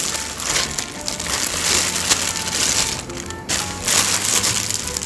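Plastic bubble-wrap packaging crinkling and crackling in several swells as a camera body is unwrapped by hand, with quiet background music underneath.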